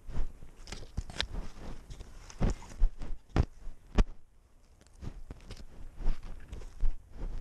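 A cat's footsteps through dry grass and straw, heard through a GoPro worn on its collar: irregular rustling and crackling of stalks brushing the camera, with several sharp knocks, the loudest in the middle.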